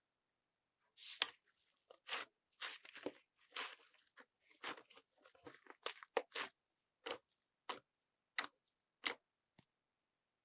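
White fluffy slime mixed with M&M chocolate candy topping, pressed and squeezed by hand. It gives about a dozen short, separate crunchy crackles, starting about a second in.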